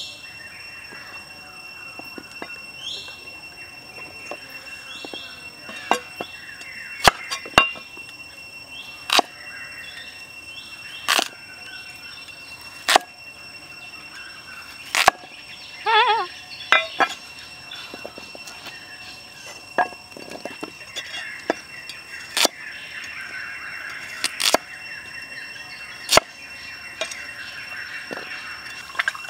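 Cleaver chopping carrots on a thick wooden chopping block: single sharp chops every one to two seconds.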